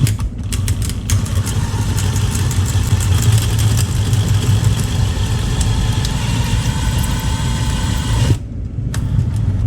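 A motor running steadily, starting with a few clicks and cutting off suddenly about eight seconds in.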